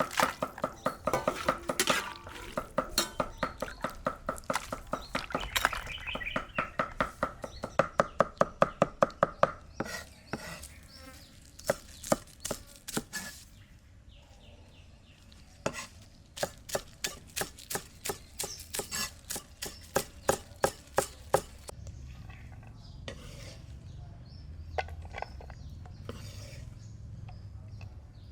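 Hand food preparation in a kitchen: rapid, regular strikes, about four a second, over a steady ringing tone for the first ten seconds. The strikes then thin out and stop a little after twenty seconds, leaving a low steady hum.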